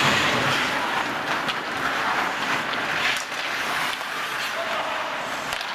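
Rink bandy play on the ice: a steady scrape and hiss of skates, with a few sharp clacks of sticks and ball.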